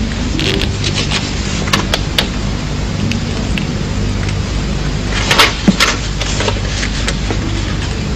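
Worn old film soundtrack: a steady hum and hiss with scattered clicks and crackles, and a short scratchy burst about five and a half seconds in.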